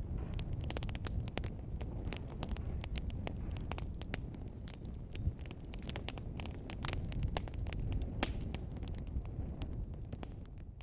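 Fire crackling in a fireplace: frequent sharp snaps and pops at irregular intervals over a low, steady rumble of the flames.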